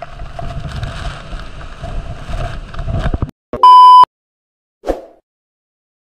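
Rushing water of a waterfall with low rumble on the microphone, cut off suddenly about three seconds in. Then a loud, bright chime sound effect rings for about half a second, followed a second later by a short soft thud.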